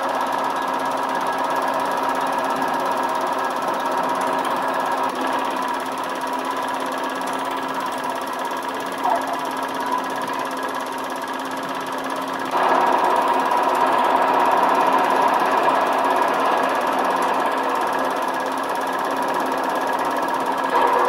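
Film projector running with a steady rapid mechanical clatter, growing louder about twelve and a half seconds in.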